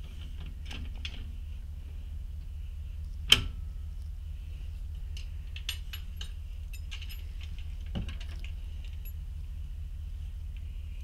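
Metal clinks and clanks of boat-trailer safety chains and a shackle being handled at the hitch, with one sharp loud clank about a third of the way in, several small clicks after it, and another knock later on. A steady low hum runs underneath.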